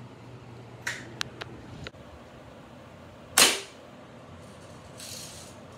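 A few light mechanical clicks, then a single sharp shot from a BB rifle about three and a half seconds in, followed by a brief hiss.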